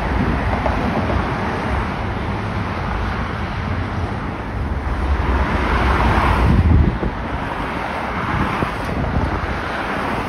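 Jet airliner engine noise mixed with wind buffeting the microphone, swelling to a peak and dropping off suddenly about seven seconds in.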